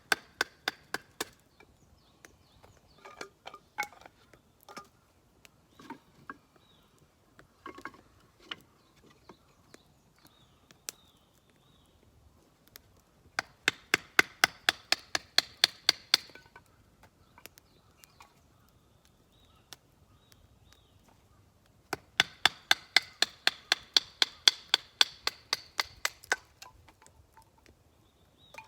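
A knife chopping rapidly on a cutting board, in two fast runs of about eight strokes a second, with scattered single cuts before them.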